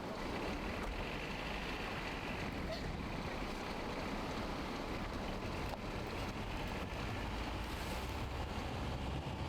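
Steady rumble of a car driving through deep snow, the engine and the snow under the car blending into one even noise.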